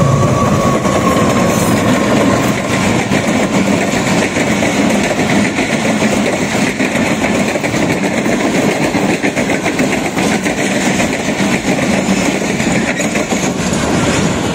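Diesel-hauled Pakistan Railways passenger train passing close by. The locomotive's engine is heard at the start, then the coaches' wheels clatter steadily over the rail joints.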